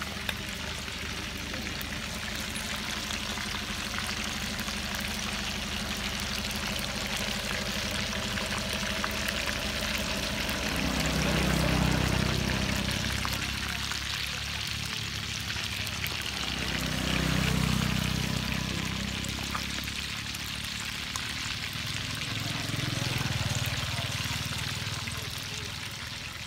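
Hot oil sizzling steadily as water snakes deep-fry in a wok. Low rumbles swell and fade three times in the second half, about six seconds apart.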